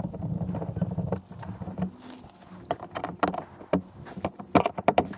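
A flat-blade screwdriver prising the plastic push-pin clips out of a Mazda CX-5's plastic engine undercover, giving a scattered series of sharp clicks and snaps.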